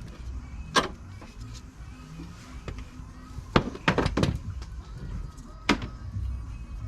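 Sharp metallic clinks of spanners and brake parts being handled while the brake hose and caliper are fitted: one about a second in, a quick cluster of four around the middle, and one near the end, each ringing briefly.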